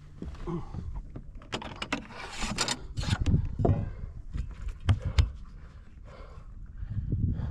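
Irregular knocks, clicks and clatter of a freshly caught fish being handled in a boat, with the lure's hooks rattling.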